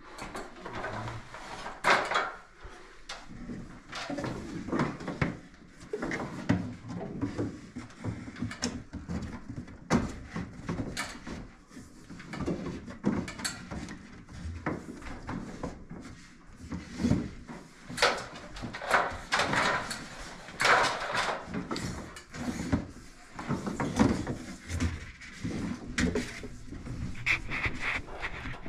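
Electrical cable being pulled and fed through wooden basement framing: irregular rustling, scraping and knocking as the cable drags over joists and studs.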